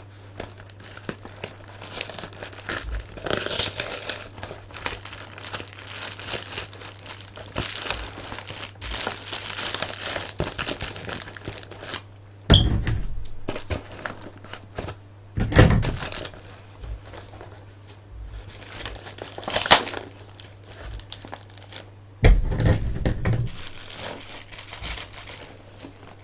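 Packing material crumpling and crinkling as it is pulled out of a cardboard shipping box, with tearing of the box and several louder handling bumps. A faint low hum runs underneath.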